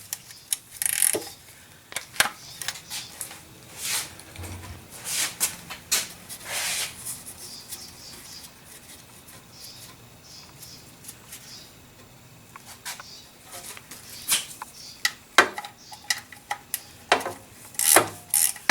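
Scattered clicks, taps and clinks of hand tools and metal parts being handled, with a few longer rubbing or scraping sounds in the first several seconds and a quieter stretch in the middle.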